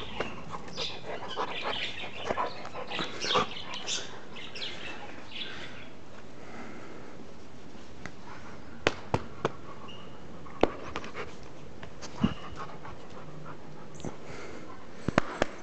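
A dog panting and breathing hard during rough play, with a busy run of short sounds over the first six seconds, then a few sharp clicks scattered through the second half.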